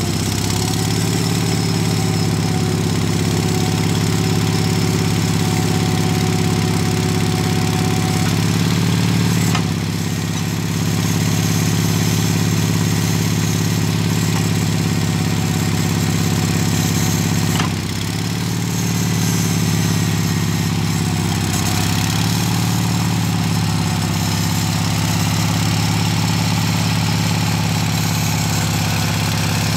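Kohler gas-powered V-twin engine of a Spyder piggyback forklift running steadily while the forks are raised and the wheels are moved on the hydraulics. The engine note sags briefly twice, about ten seconds and eighteen seconds in, then recovers.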